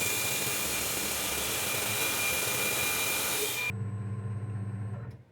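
A workshop machine running with a loud rushing air noise and a steady high whine. Both stop abruptly about three and a half seconds in, leaving a low hum that cuts off just before the end.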